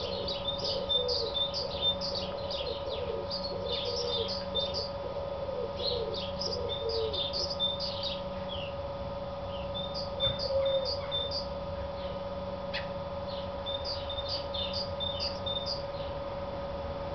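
Male house sparrow giving its advertising call: a long series of short, high chirps repeated in runs with brief pauses. This is the call a male uses to claim a nest site and attract a female.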